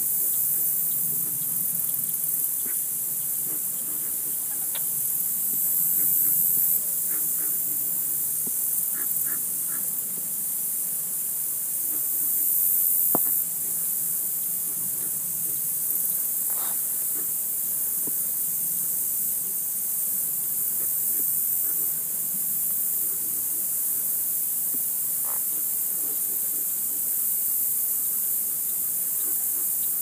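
Steady, high-pitched summer insect chorus from a Florida marsh, with occasional short bird calls.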